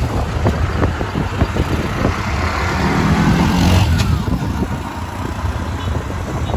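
Auto-rickshaw engine running steadily as the rickshaw drives along the road, a continuous low rumble, with one brief sharp click about four seconds in.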